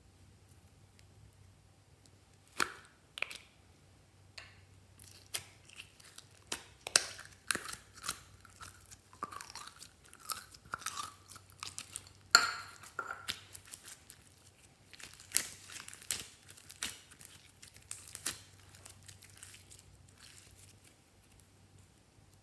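Slime squeezed and pressed by hand into glossy slime: irregular wet squelches, sticky pops and crackles, starting about two and a half seconds in and thinning out near the end.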